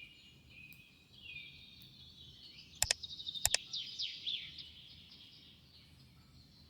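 Small birds chirping and twittering with quick high calls, with a few sharp double clicks about three seconds in.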